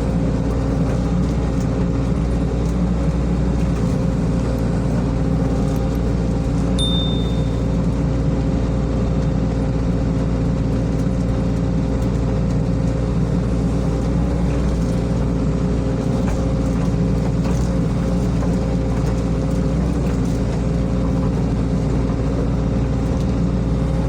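SANY SY55C mini excavator's diesel engine running steadily at working speed, with a brief high-pitched tone about seven seconds in.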